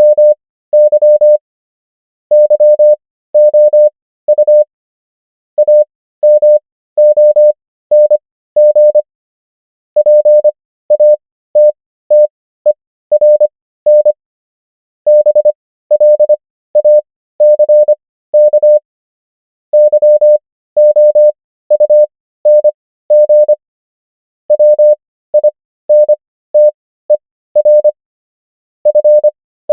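Morse code practice tone: a single steady beep keyed on and off into dots and dashes, spelling common English words at 25 wpm character speed with Farnsworth spacing to 15 wpm. Each word is a quick cluster of beeps, with a short silence before the next.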